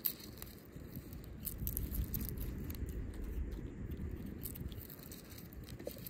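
A knife blade scraping and peeling the papery skin off a garlic clove: small, scattered crackling and tearing scrapes, over a steady low rumble of wind on the microphone.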